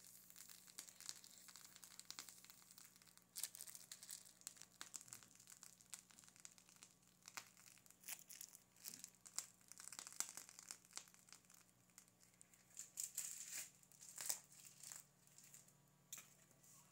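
Faint crinkling and rustling of a plastic piping bag being squeezed as whipped cream is piped, in scattered soft crackles over a steady low hum.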